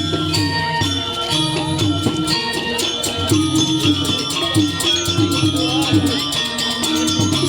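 Balinese gamelan music: fast, dense clashing of small cymbals over held metallic tones and a repeating low pulse.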